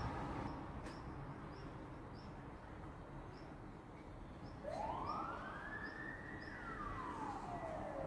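Faint wailing siren: one slow rise in pitch starting about halfway through, a brief hold, then a long fall, over a low storm rumble that dies away in the first couple of seconds.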